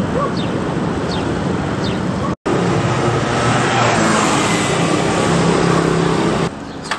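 Street traffic noise: a steady hum of motor vehicles, with an engine running steadily. The sound cuts out for a moment about two seconds in and comes back slightly louder.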